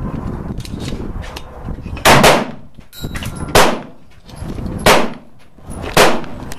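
Gunfire at a shooting range: two faint shots early on, then four loud, sharp shots about a second and a quarter apart, each trailing off briefly.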